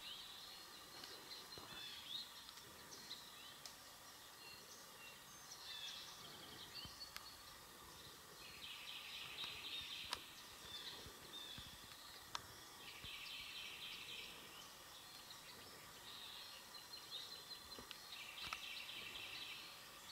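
Faint woodland background with small songbirds calling: scattered high chirps and a few trilled songs of about a second and a half each, repeated several times.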